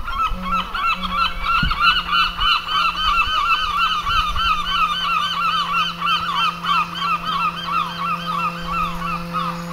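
A flock of geese honking continuously in rapid, overlapping calls. A steady low hum comes in about a second in and runs beneath them.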